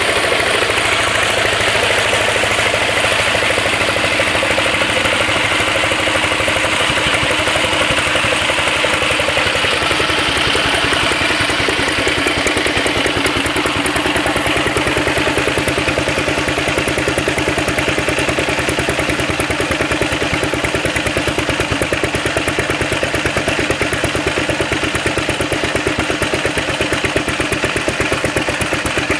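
1964 Yongxing Machinery kerosene engine running steadily at idle, with a fast, even firing beat.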